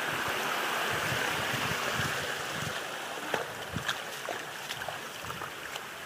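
Rushing water of a rocky stream cascading over boulders, slowly growing fainter, with a few scattered light knocks from about three seconds in.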